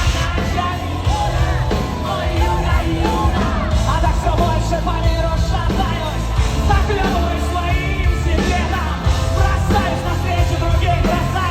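Rock backing music with a woman's wordless vocalise sung over it.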